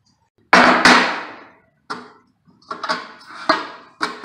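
A series of sharp wooden and metal knocks and clunks, the loudest a double knock about half a second in: a pine stair tread being handled on a portable table saw while the saw is set up. The saw is not running.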